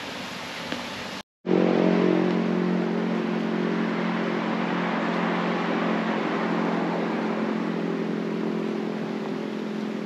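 Engine running at a steady pitch, coming in abruptly after a short cut about a second and a half in. Before the cut, a windy hiss.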